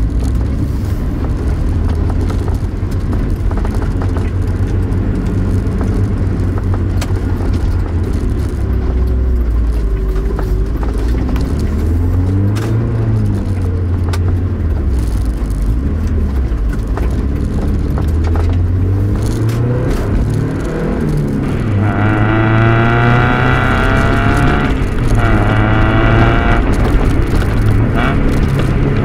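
Mazda MX-5's four-cylinder engine and Fujitsubo aftermarket muffler, heard from inside the cabin while driving, the revs rising and falling with the gear changes. About 22 s in, a harder acceleration brings a louder, brighter rising exhaust note for a few seconds, broken once by a gear shift.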